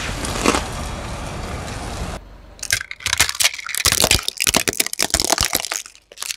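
Car tyre rolling slowly on concrete with a gritty rumble and a sharp crack about half a second in. After a brief lull, plastic toy water guns crack and snap in a rapid run of sharp breaks as the tyre crushes them.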